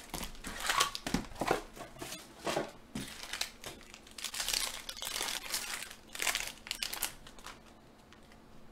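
Foil trading-card pack wrapper crinkling in irregular crackly bursts as it is handled and pulled open, quieting near the end.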